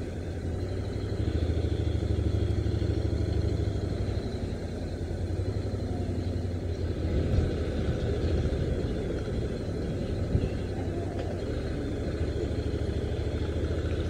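Honda NC750X DCT motorcycle's parallel-twin engine running at low road speed, a steady low rumble with road noise.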